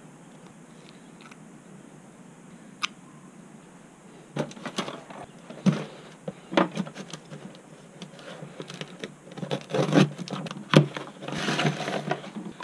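Handling things on a cluttered tool cart: a single click about three seconds in, then from about four seconds on an irregular string of knocks, rattles and rustles as a cardboard box is opened and the plastic bag inside it is handled.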